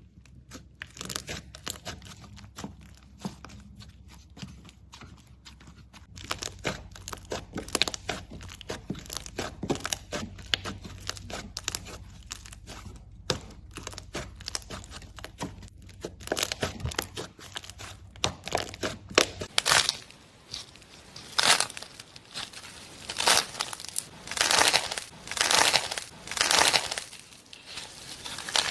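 Slime being worked by hand, with dense, rapid crackling and popping clicks. About two-thirds of the way through it changes to slower, louder squishes, about one a second.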